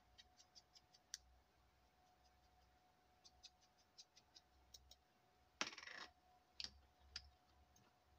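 Faint clicks and taps of small craft pieces being picked up and set down on a cutting mat, with a brief rustling scrape about two-thirds of the way through, over a faint steady hum.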